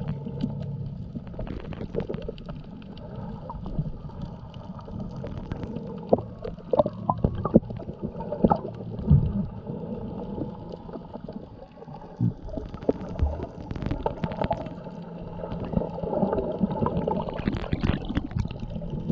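Muffled underwater sound from a camera held below the surface: low gurgling water noise with a steady low hum and many scattered sharp clicks and pops.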